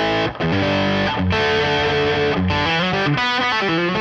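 Electric guitar on its bridge humbucker played through a Jet City JCA5212RC tube combo's crunch channel, gain halfway up with no boost in front: overdriven rhythm chords ringing out, with a few short breaks between chord changes.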